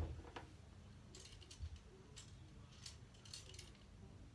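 A soft thump at the start, then faint rustling and light clicks: clothing being handled while a shirt is changed.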